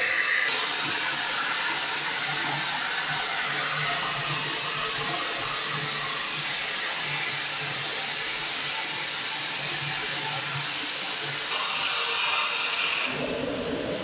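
Steady rushing hiss of water flowing through a venturi chemical-mixing injector into a plastic drum, with a faint low hum under it. The hiss turns brighter near the end.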